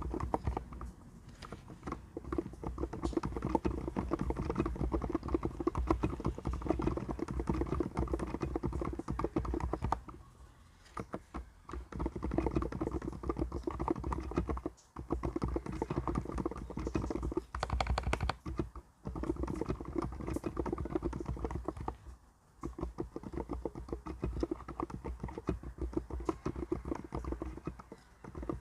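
Typing on an Mstone mechanical keyboard: a fast, dense run of keystrokes with a few brief pauses.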